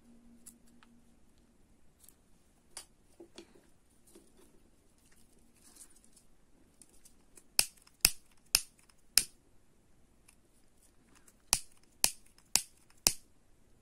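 Scissors and a small lighter at work on nylon crochet thread ends, trimming and sealing them. A few faint snips come first, then two runs of four sharp clicks about half a second apart, one about halfway through and one near the end.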